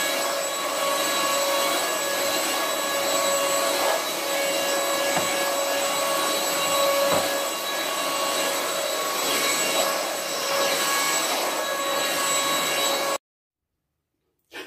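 Stick vacuum cleaner running steadily as it is pushed over a rug: an even motor whine over a high hiss. It cuts off suddenly near the end.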